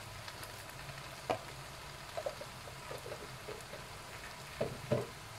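Yellow noodles, mustard greens and meatballs frying in a wok with a steady, quiet sizzle. A few short clicks are scattered through it, two close together near the end.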